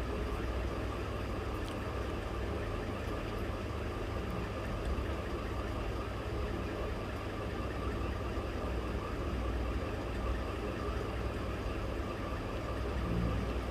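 Steady low background hum and noise, with no distinct events.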